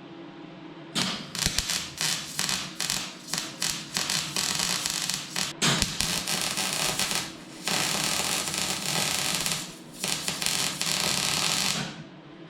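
Arc welding on car body steel: the weld crackles and sizzles in a run of bursts with short breaks, starting about a second in and stopping near the end.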